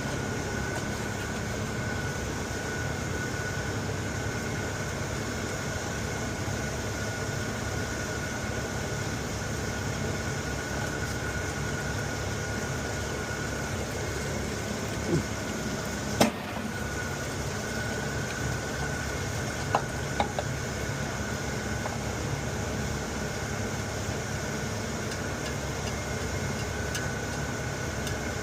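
Machinery running steadily, a constant hum with a thin high whine over it, and a few short sharp clicks about halfway through.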